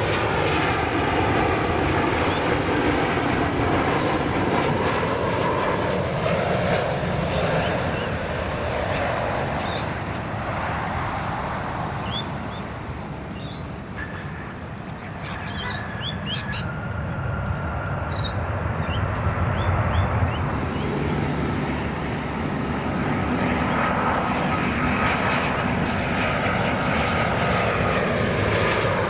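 Aircraft engine noise with a falling pitch as one aircraft passes and recedes. It fades to its lowest about halfway through, then swells again as another aircraft approaches.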